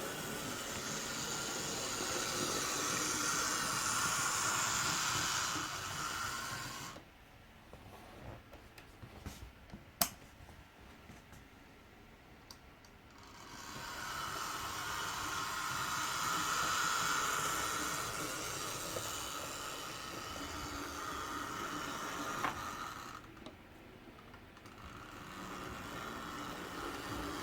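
Hornby OO-scale Duchess of Sutherland model locomotive's small electric motor and gears whirring as it runs along the track, swelling and fading. It stops for about six seconds, with a few light clicks and one sharp click, then runs again, pausing once more near the end.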